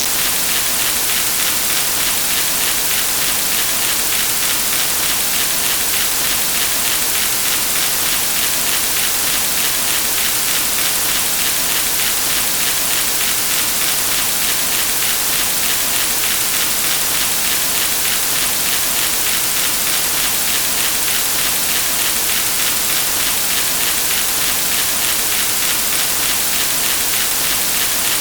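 A steady, loud hiss of noise, even in level throughout, with no separate events.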